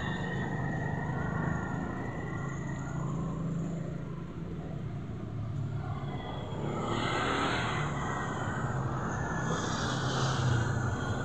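Steady low outdoor rumble of background noise, with a louder rush of noise swelling about seven seconds in and again around ten seconds.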